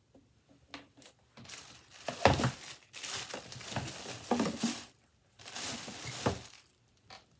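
A bag rustling and crinkling as it is rummaged through, with a few sharp crackles or knocks, the loudest about two seconds in.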